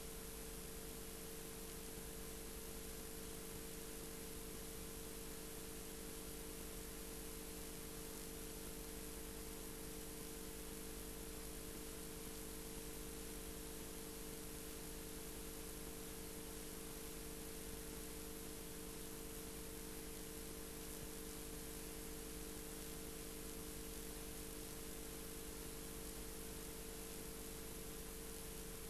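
Steady hiss with a constant low electrical hum underneath and no other sound: the noise floor of an old analogue video recording.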